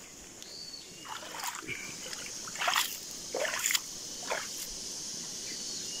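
Water splashing and sloshing in a shallow muddy pool in several short, irregular bursts, over a steady high hiss.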